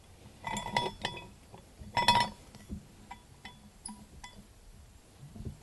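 Steel pipe-fitting hardware clinking and ringing as a fitting ring is set on a steel 90° elbow: a cluster of metallic clinks about half a second in, the loudest ringing strike about two seconds in, then a few lighter taps.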